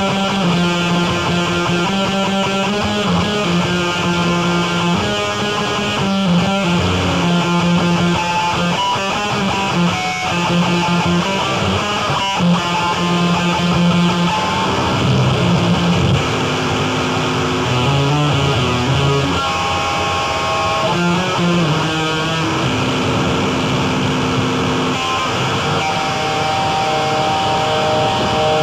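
Live noise music: a dense wall of distorted noise under repeated low pitched notes that shift every second or so, thinning to fewer, longer held tones about halfway through.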